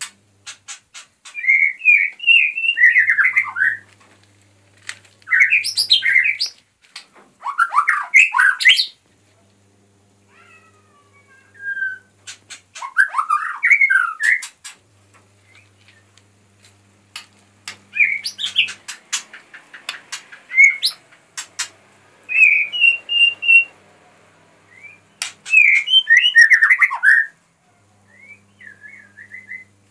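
White-rumped shama (murai batu) singing: loud, varied whistled phrases mixed with sharp clicking notes, delivered in bouts with pauses of a few seconds between them.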